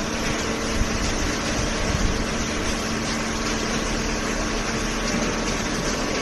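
Hydraulic baler's power unit running: the electric motor and hydraulic pump make a steady mechanical hum with a constant low tone.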